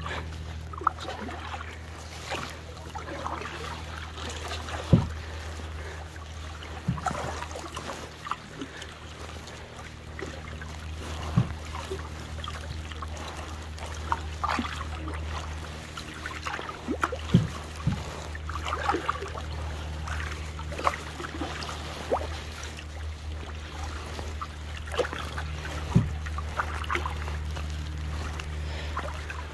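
Wooden canoe paddles stroking through calm water: water trickling and splashing off the blades with each stroke, a few sharp knocks along the way, over a steady low rumble.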